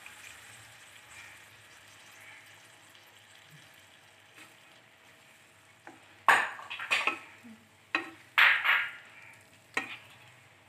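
Wooden spatula stirring and scraping a thick shallot-and-coconut gravy in a nonstick pan over a low sizzle. In the second half come about five loud scraping strokes against the pan.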